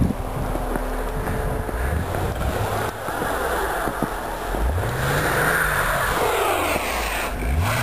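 A car stuck in snow, its engine revving twice with the pitch rising and falling each time as the wheels spin.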